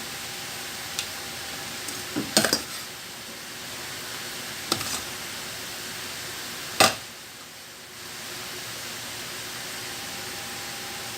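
Banana-leaf food parcels being folded and handled: a few short crackling rustles and soft knocks about two, five and seven seconds in, the last the loudest, over a steady hiss.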